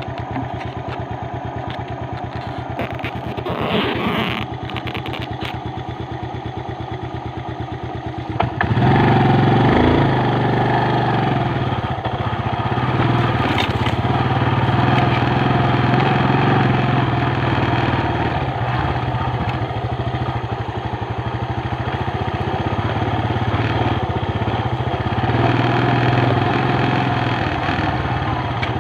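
Motorcycle engine idling with an even beat, then revving up about eight seconds in and running louder and steadily under load as the bike is ridden off.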